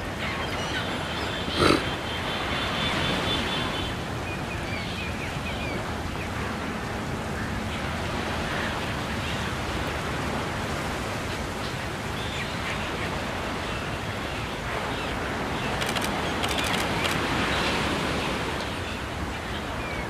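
Steady rushing outdoor background noise with faint bird chirps. There is one sharp click nearly two seconds in, and the noise swells slightly near the end.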